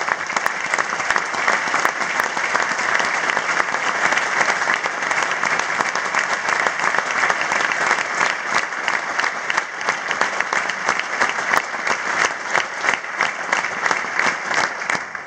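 Audience applauding: a dense, steady clapping that thins out near the end, with single claps standing out as it fades.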